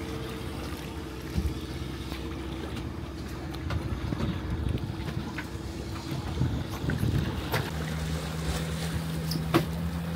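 A boat engine idling with a steady low hum, under wind on the microphone and water lapping. The engine note changes about three-quarters of the way through.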